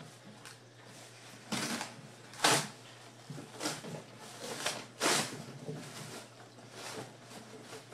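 Cardboard box being torn and wrestled open to free a stuck part: a string of irregular rips, scrapes and rustles, the loudest about a second and a half, two and a half and five seconds in.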